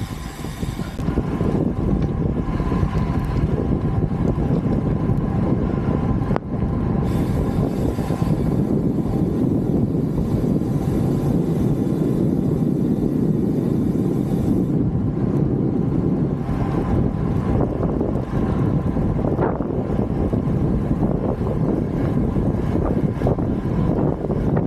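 Motorcycle riding steadily at about 45–50 km/h: wind rushing over the camera microphone, mixed with engine and road noise. A brief break about six seconds in, where the ride footage cuts.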